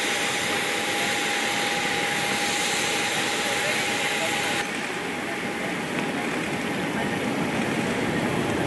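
Steady jet noise from a Boeing 737 standing on the apron: a broad rushing hiss with a thin steady whine. About halfway through it changes to a duller, slightly softer rush.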